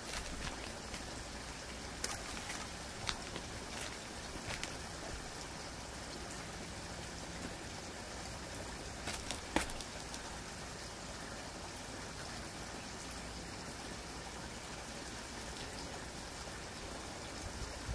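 Quiet outdoor background: a steady soft hiss with a few faint, short ticks and taps scattered through it.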